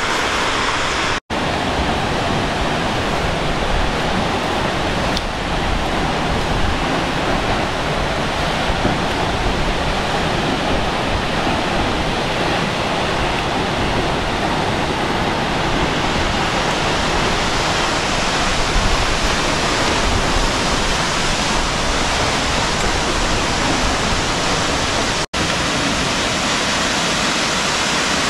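A tall waterfall, about 120 metres high, rushing and splashing into its basin in a loud, steady roar of falling water. The sound drops out for an instant twice, once about a second in and once near the end.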